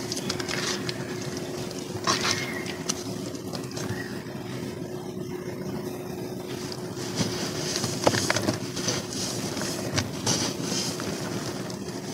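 Hands squelching, squeezing and patting wet cement slurry in a basin of water, with wet splashes and a few sharper slaps, over a steady low hum.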